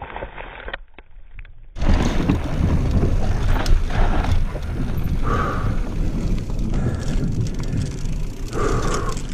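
Mountain bike riding down a dirt woodland trail, with a few clicks and crunches at first. About two seconds in it switches to a loud, steady rush of wind over the microphone with the tyres and frame rumbling over rough ground, broken twice by a short higher tone.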